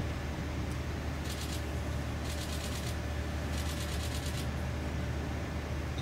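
Caltrain Stadler electric train rolling slowly in, a low steady hum, with three short spells of rapid fine ticking about one, two and three and a half seconds in.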